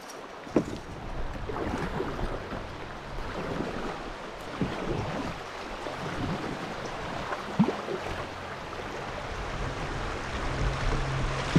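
Fast river water rushing and gurgling around a kayak as it is paddled through a riffle, with a few sharp splashes from the paddle blade. Wind buffets the microphone.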